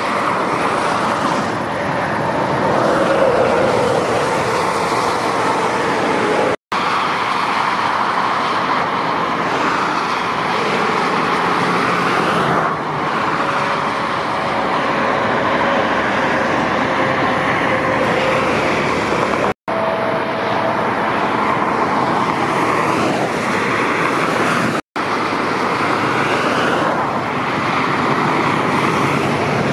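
Steady motorway traffic: lorries and cars passing at speed, mostly tyre noise with engine drone underneath. The sound drops out briefly three times, at cuts between clips.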